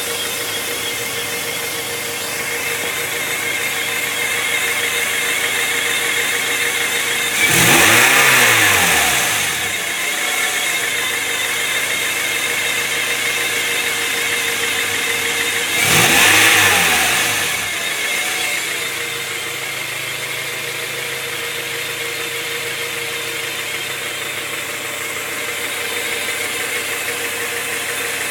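1997 Honda Prelude SH's four-cylinder DOHC VTEC engine idling with a steady whine, which the owner hears coming from the transmission and finds unlike a bad throw-out bearing. The engine is revved up and back down twice, once about a quarter of the way in and again near the middle.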